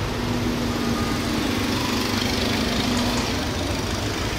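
Steady engine noise with a low hum that drops out about three seconds in, over a hiss of background noise.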